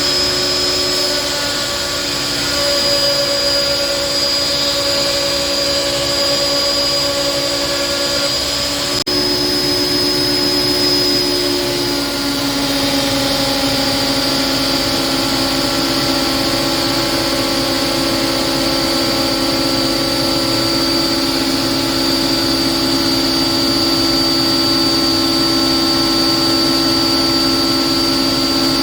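Charnwood PT250SP planer thicknesser running, its 2 hp motor and spiral carbide cutter block giving a steady mechanical hum with a high whine. There is a brief break about nine seconds in, and the pitch shifts slightly a few seconds later.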